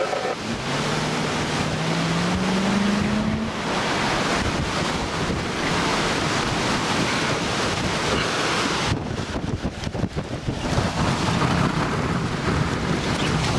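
Strong wind rushing and buffeting the microphone, with a low hum rising in pitch during the first few seconds.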